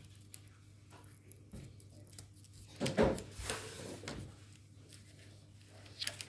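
Scissors cutting through the thick stem of a craft flower, with small clicks and handling sounds on a table and a louder knock about three seconds in.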